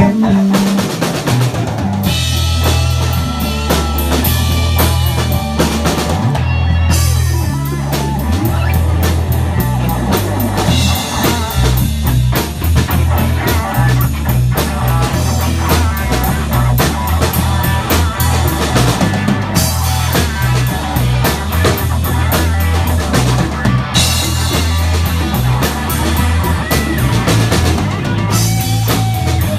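Live band playing a rock song: drum kit, electric guitar and a driving bass line.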